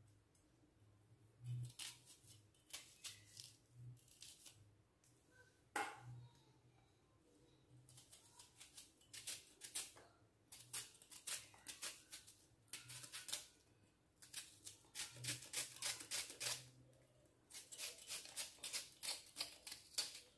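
Kitchen knife cutting through an onion and green chillies held in the hand, a series of short crisp cuts with pieces dropping into a steel pan. The cuts come in quick runs, densest near the end at several a second.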